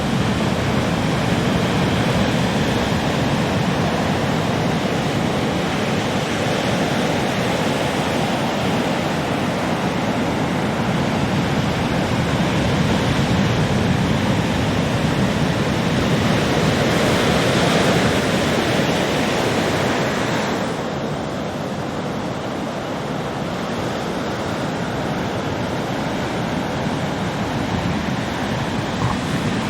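Heavy ocean surf: big waves breaking in a continuous loud rush, swelling to a peak past halfway and then easing a little.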